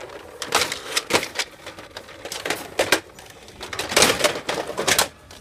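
Hard plastic toys clattering and knocking against a metal wire store shelf as they are shoved aside and rummaged through. The knocks come in an irregular string, with the loudest cluster about four seconds in.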